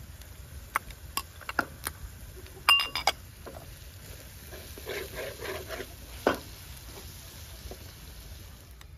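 Scattered clicks and clinks of utensils against dishes, with a ringing clink about three seconds in and a sharp knock about six seconds in.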